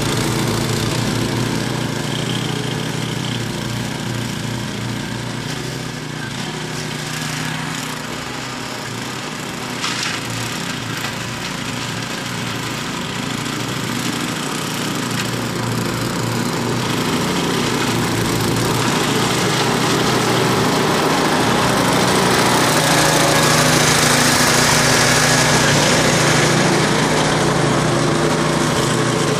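Ariens snowblower's gas engine running steadily as it clears snow. It is a little fainter as the machine moves away, then grows louder over the second half as it comes back close, with a brief click about ten seconds in.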